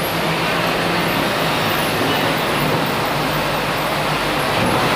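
Diesel engine of a Hino 500 truck running steadily under low load as the truck creeps forward inside a ferry's enclosed vehicle deck, a constant loud drone with a low engine hum.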